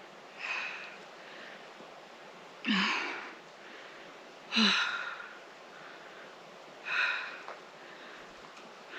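A woman breathing hard: four gasping breaths about two seconds apart, two of them with a short voiced catch at the start.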